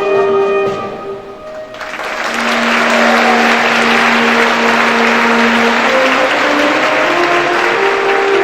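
Instrumental music with sustained chords and notes; about two seconds in, an audience breaks into applause, which carries on over the music.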